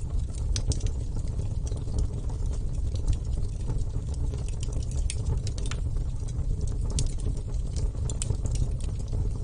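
Wood bonfire burning: a steady low rumble with many irregular sharp crackles and pops from the burning wood.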